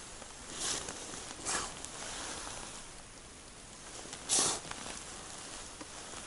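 Soft swishes of a winter jacket sleeve as an ice angler draws fishing line up through the hole by hand, three times, the third, about four seconds in, the loudest, over a steady low hiss.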